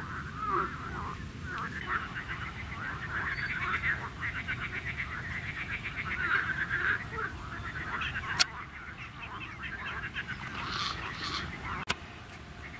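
A busy chorus of animal calls, many overlapping rattling calls, with two sharp knocks about eight and twelve seconds in.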